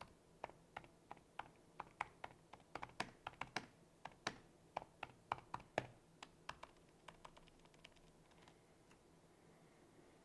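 Typing on a laptop keyboard: quick, irregular key clicks that thin out after about seven seconds and stop shortly before the end.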